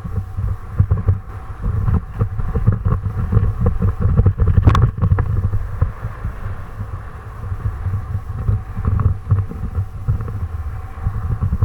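Wind buffeting the microphone: an uneven low rumble full of thumps, with a single sharp click about five seconds in.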